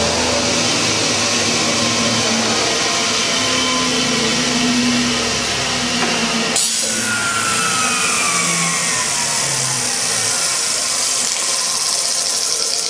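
Wood shaper, a 3-horsepower motor, spinning a neodymium-magnet wheel with a loud, steady whir and hum. About six and a half seconds in, the low motor hum cuts off and the whine falls in pitch as the wheel coasts down.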